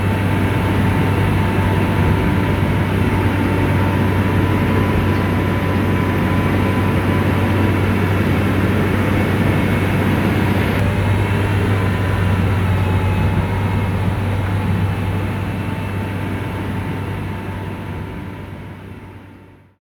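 Bulldozer diesel engine running steadily with a deep, even hum, fading out near the end.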